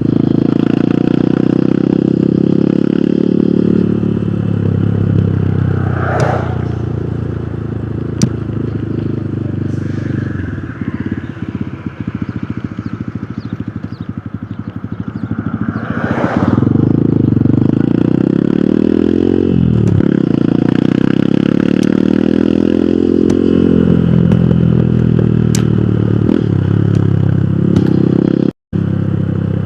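Hero Hunk motorcycle's single-cylinder four-stroke engine running on the road. Its pitch climbs and drops with throttle and gear changes, easing off for a few seconds about a third of the way in and then pulling again. The sound cuts out for a split second near the end.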